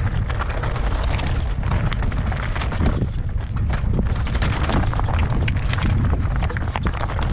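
Wind buffeting the camera microphone with a steady low rumble, over a busy clatter of small clicks and knocks from a mountain bike on a rocky trail.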